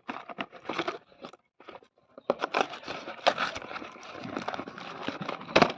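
Toy packaging crinkling and tearing as it is unboxed: scattered crackles, a short pause, then steady crinkling, with a sharp click near the end.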